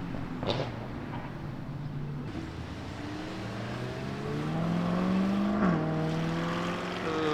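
A car engine pulling away under throttle, its pitch climbing for a couple of seconds, then dropping sharply about three-quarters of the way through and running on at a steadier pitch.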